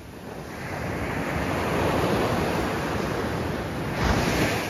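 Surf breaking and washing up a sandy beach: the wash swells over the first couple of seconds, and a second wave breaks about four seconds in.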